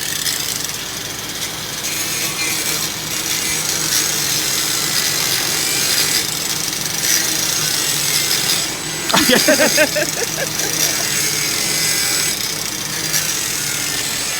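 Power tool cutting into a truck's steel front bumper, a steady high-pitched cutting noise to trim clearance for oversized tires.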